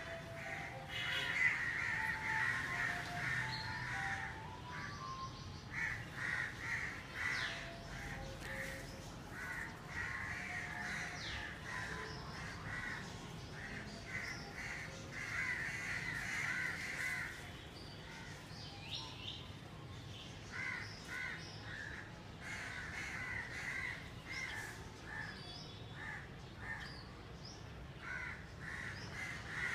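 Crows cawing over and over in runs of short, harsh calls, with a few thin whistled notes from another bird in the first seconds.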